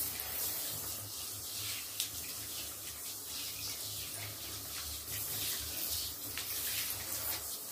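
Water running steadily from a handheld bathtub shower head, spraying over a wet small dog's coat and splashing into the tub.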